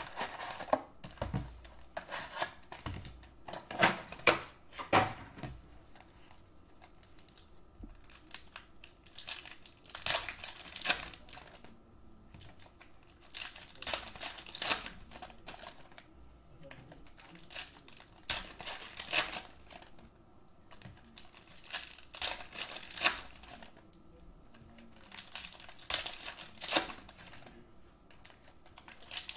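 Foil wrappers of basketball trading-card packs crinkling and being torn open. The crackling comes in short bursts about every four seconds, one pack after another.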